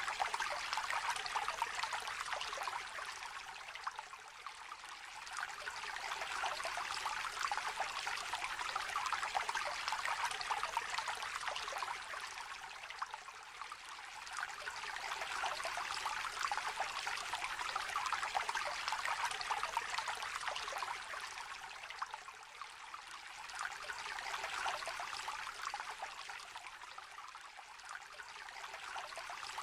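A small river trickling and babbling, a steady rush of water that swells and eases slowly every eight or nine seconds.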